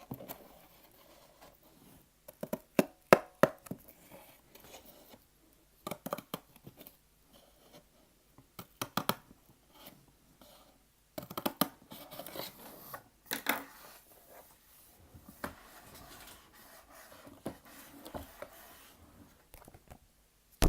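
Close-miked ASMR trigger sounds: clusters of sharp snips and clicks, with soft rubbing and scratching between them.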